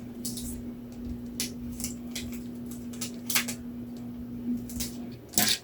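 Small items being handled and set down in a cage, making scattered short clicks and rustles, the loudest near the end, over a steady low hum that stops about five seconds in.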